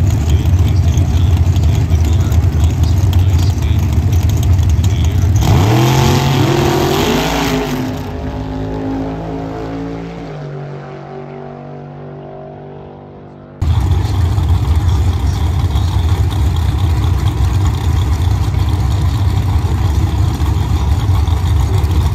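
A drag-racing car launches hard and accelerates away. Its engine note rises, then falls and fades into the distance until the sound cuts off suddenly. A steady, loud low rumble comes before and after it.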